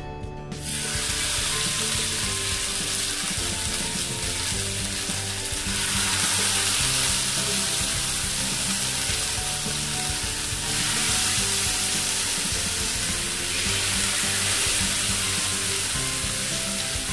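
Sardines frying in hot coconut oil in a pan: a steady sizzle that starts about half a second in and swells twice. Soft background music runs underneath.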